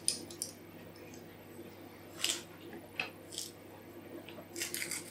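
Garlic cloves being peeled by hand on a plastic cutting board: a few short, sudden crackles of papery skin, the biggest about two seconds in and a cluster near the end.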